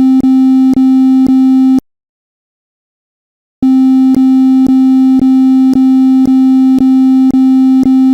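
Micro:bit temperature alarm: a loud, buzzy electronic beep on one low note, repeated back to back with a click about twice a second. It cuts off about two seconds in and starts again after a pause of nearly two seconds.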